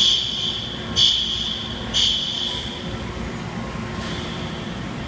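Fire alarm horns on a Fire-Lite MS-9600LS system sounding the temporal-three evacuation pattern: three loud, echoing blasts about a second apart. After about two and a half seconds the loud blasts stop, and a fainter horn tone of the same pitch carries on over the hum of the plant.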